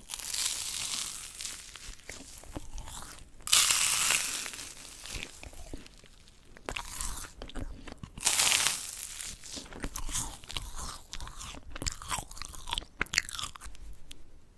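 Crispy yugwa, a Korean fried glutinous-rice snack coated in puffed rice, bitten and chewed right at the microphone. There are three loud crunching bites a few seconds apart, each followed by crackly chewing, and the chewing quiets down near the end.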